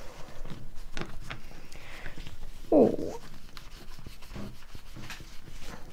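Soft scratching and rubbing of paper as a bookbinding awl is wriggled back and forth through the crease of a folded stack of paper to pierce a sewing hole. A brief hum of voice about three seconds in is the loudest moment.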